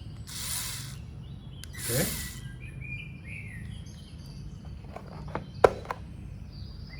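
Birds chirping faintly in the background, with a few sharp clicks about five and a half to six seconds in.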